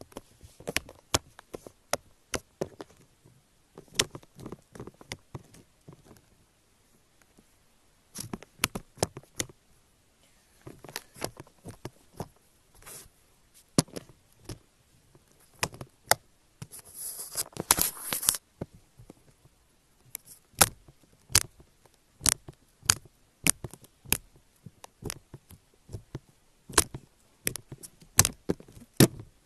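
Hands squeezing and poking slime: an irregular run of sharp sticky clicks and pops, with a longer crackling squelch about two-thirds of the way through.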